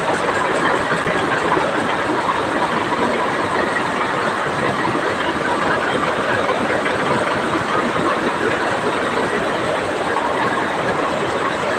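Power looms weaving patterned fabric: a dense, steady mechanical clatter from many looms running at once in the shed.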